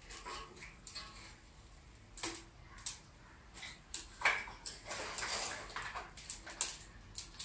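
Irregular crackles, knocks and rustles of dry wood sticks being pushed into a newly lit wood fire in a chulha stove, busiest around four to six seconds in.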